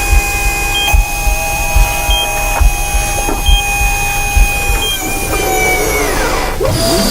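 Layered science-fiction sound effects: a steady electronic hum with a short high beep repeating about every second and a half and a low pulse a little under a second apart, then the tones slide down in pitch like machinery powering down, ending in a whooshing sweep.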